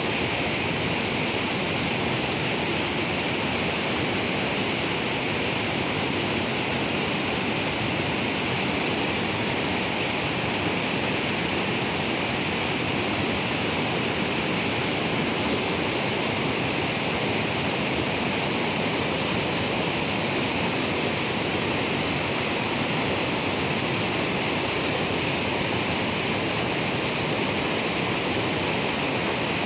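Flowing river water rushing steadily, an even, unbroken noise.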